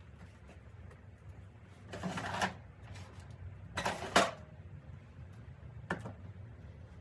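Two brief bursts of clattering handling noise, about two and four seconds in, then a single sharp click near the end, as of a small part or tool being worked by hand.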